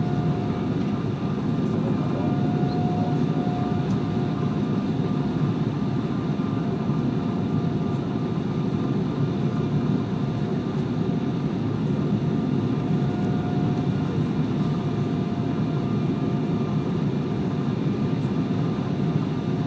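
Steady cabin noise of an Embraer E190 jet airliner on final approach: airflow and the hum of its GE CF34-10E turbofan engines, with a thin steady engine whine.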